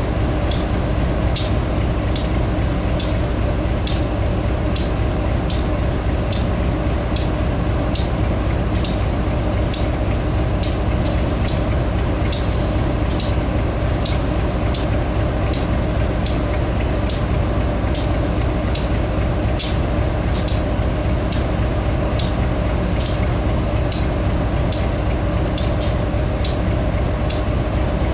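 GE B23-7 diesel locomotive's V12 engine running steadily, with a sharp high clicking repeating about once or twice a second over the drone.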